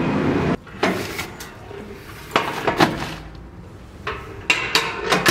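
A steady rush of noise cuts off abruptly about half a second in, followed by a scatter of sharp knocks and clunks from a glass entrance door and plastic mailer packages being handled, with a quick run of knocks near the end.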